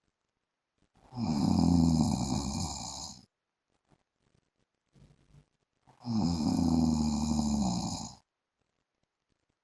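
A man snoring in his sleep: two snores, each about two seconds long, about five seconds apart.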